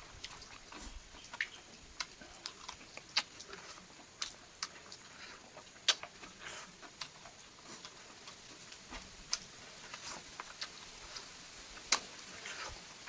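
Close-miked chewing of chicken: irregular wet mouth smacks and clicks, a sharp one about six seconds in and another near the end.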